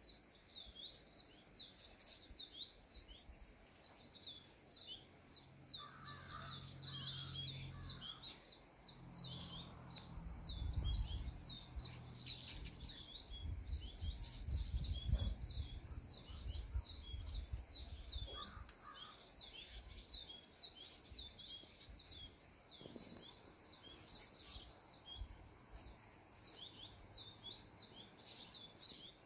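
Many small birds chirping in quick, overlapping calls. A low rumble runs for several seconds in the middle.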